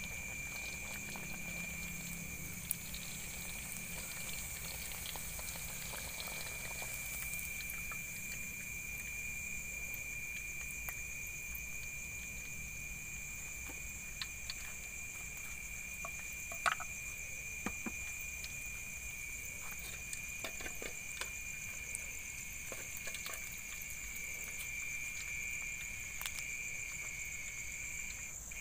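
Steady night chorus of insects chirring without a break, two high-pitched layers one above the other, with a few faint clicks and taps.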